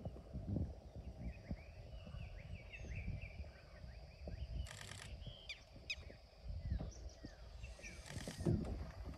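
Birds chirping, with two short bursts of rapid clicking about halfway through and near the end, over low rumbling noise.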